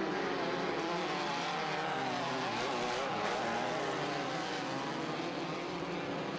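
Several Volkswagen-based off-road race buggies running hard together, their engine notes overlapping and rising and falling in pitch as they rev.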